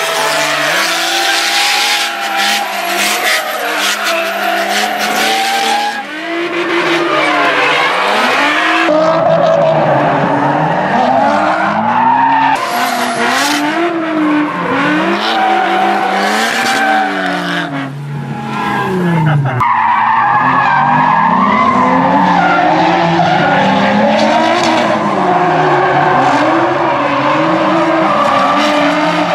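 Drift cars, a Nissan 350Z and a Nissan S-chassis, running hard in tandem, engines revving up and down over and over as the throttle is worked through the slides. Tyre squeal and hiss are heaviest in the first several seconds, with a short dip about two-thirds of the way through.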